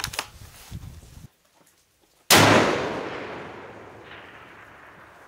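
A single shot from a scoped bolt-action precision rifle, sudden and loud about two seconds in. Its echo rolls away and fades slowly over the following couple of seconds.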